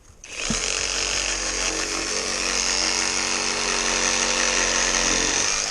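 Cordless reciprocating saw with a pruning blade, running at a steady speed while sawing through dead apple-tree wood. It starts about a third of a second in and stops abruptly at the end.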